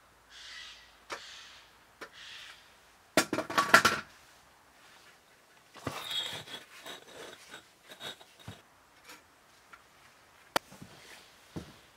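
A metal spirit level being handled on wooden deck joists: a quick clatter of knocks and clinks about three seconds in, then scraping and handling noise, and a single sharp knock near the end.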